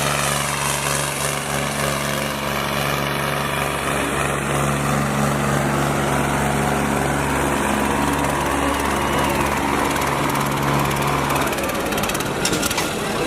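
Diesel tractor engine running at a steady speed. Its steady note stops about a second and a half before the end, leaving a rougher noise with a few clicks.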